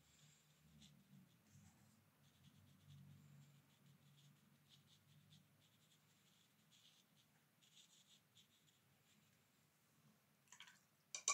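Near silence, with faint, soft strokes of a watercolour brush on paper. A few short clicks come just before the end.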